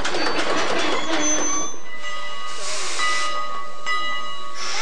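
Passenger train cars rolling past with wheels clattering over rail joints, stopping abruptly about two seconds in. Then a standing steam locomotive hisses steam from its cylinder cocks in two short bursts, the second near the end.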